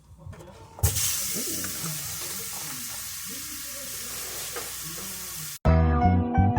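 Food sizzling in a hot frying pan, starting suddenly about a second in and holding steady. It cuts off near the end, and music with a steady beat takes over.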